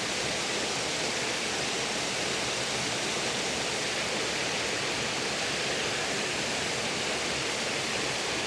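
Waterfall running steadily, an even wash of falling water with no breaks.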